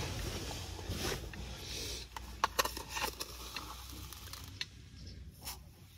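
Fabric rustling, then a small plastic tub of instant coffee being handled, with a spoon scooping and clicking against the plastic in a series of sharp ticks from about two seconds in.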